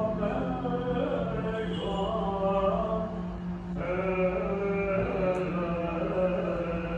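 Byzantine chant: liturgical singing in a Greek Orthodox vespers service, held and gliding notes with a new phrase beginning about halfway through.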